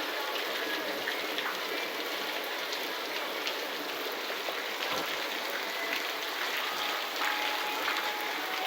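Heavy rain falling steadily, an even hiss of rain.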